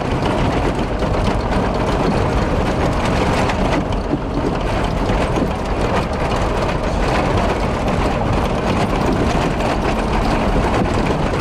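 Cabin of an old Toyota Land Cruiser-chassis motorhome rattling and shaking over a rough, bumpy dirt road: a loud, continuous clatter of loose fittings and body over the drone of the engine and tyres. The ride is harsh and the suspension feels rigid.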